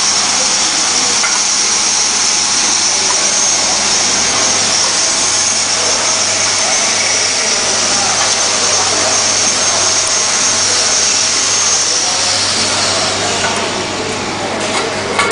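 Shrink-wrap machine running: a steady loud rush with a high whine. About twelve seconds in, the whine slides lower in pitch and the sound eases slightly.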